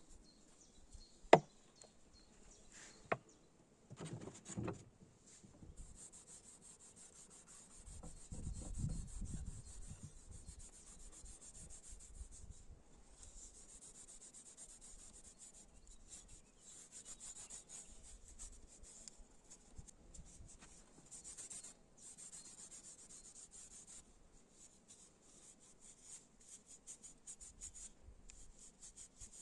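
Hand rubbing strokes, something abrasive worked quickly back and forth over a hard workpiece. Two sharp knocks come in the first few seconds and a low rumble about nine seconds in.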